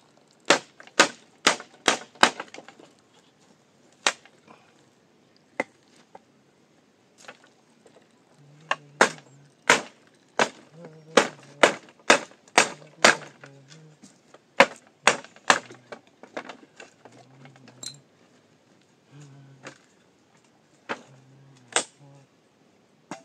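Hammer nailing wooden boards: runs of sharp blows about two a second, with pauses and single strikes between the runs.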